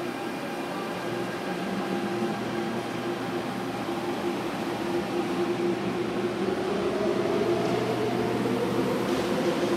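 MTR Airport Express electric train pulling out of the station and gathering speed: a steady hum with several held tones, and a whine that rises slowly in pitch in the second half as it accelerates away.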